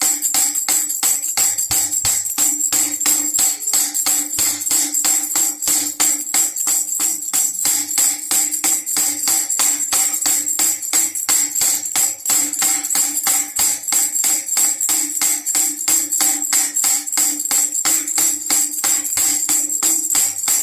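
Baby rattle with jingle bells shaken in a rapid, steady rhythm: a bright metallic jingling over a steady ringing tone.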